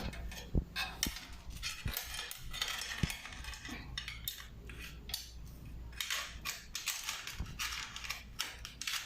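Fixed-gear bike chain clinking and rattling in irregular small metallic clicks as it is worked onto the sprocket and chainring.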